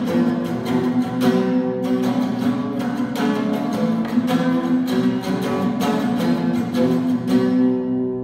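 Acoustic guitar strummed in a steady rhythm, chords ringing over each stroke. Near the end the strumming stops and the last chord is left to ring and fade.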